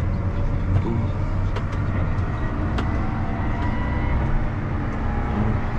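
Steady low rumble of a John Deere 7R-series tractor's engine heard from inside its cab as it drives slowly, with a few faint clicks.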